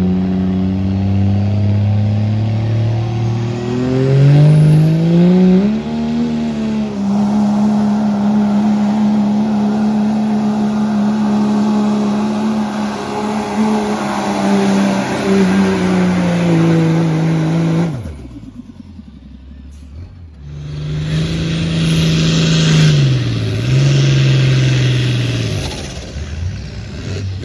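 Diesel Dodge Ram pickup in a truck pull, revving up about four seconds in and held at high revs as it drags the weight sled, then easing off. After a brief drop-out, a second puller's engine runs at high revs, its pitch dipping once and recovering.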